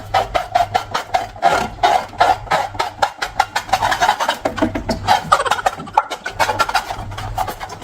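A long rubber balloon being rubbed and squeezed: a rapid, stuttering run of squeaks and crackles.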